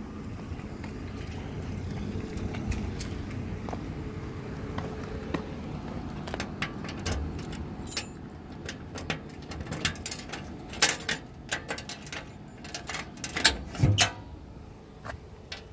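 Keys jangling with scattered sharp clicks and knocks as the toolbox compartments of a wrecker's body are handled and worked with a key. The clicks are heaviest in the second half, loudest near the end, over a low rumble in the first several seconds.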